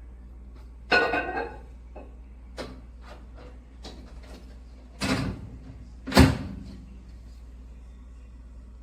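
A door being handled: a series of knocks and clunks, the loudest a sharp bang about six seconds in, over a steady low hum.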